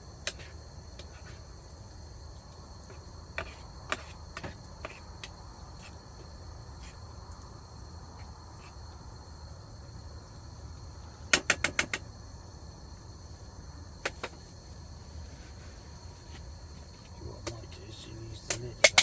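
Crickets chirring steadily, with scattered sharp clicks and taps over it, including a quick run of five about eleven seconds in.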